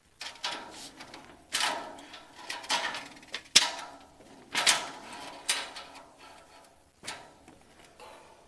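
A steel tape measure being stretched out and handled against a steel chassis frame: a series of short scrapes and clatters, about one a second.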